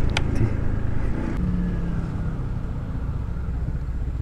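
Honda ADV160 scooter's single-cylinder engine running at low speed with road noise, easing off as the scooter slows. A short high squeak sounds just after the start.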